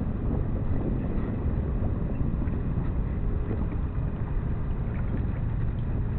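Wind buffeting the microphone aboard a sailboat under sail: a steady, low, unsteady rumble with no separate events.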